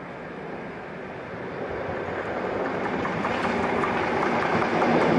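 British Rail Class 73 electro-diesel locomotive E6003 approaching and passing, its rumble growing steadily louder, with the clatter of wheels over rail joints coming through as it draws close.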